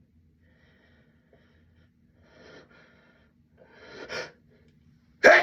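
A person working up to a sneeze: two catching in-breaths, the second louder, then a loud sneeze bursting out near the end.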